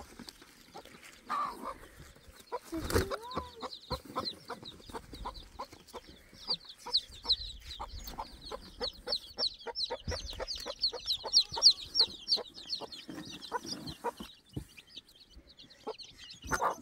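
Chicks peeping in a fast, continuous run of short high chirps, with a hen clucking and a few sharp knocks and taps. The chirping thins out toward the end.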